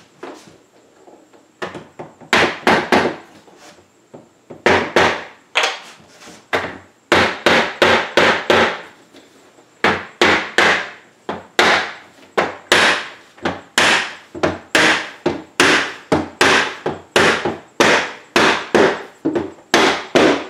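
Plastic hammer striking a wooden block held against a window panel, tapping the panel back into its frame: runs of sharp knocks, about three a second, with short pauses between runs, starting about two seconds in.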